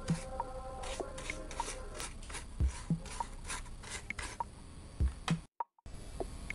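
Paintbrush scrubbing paint onto a thin PET-plastic leaf: quick, repeated scratchy strokes over quiet background music with a soft beat. The sound cuts out briefly near the end.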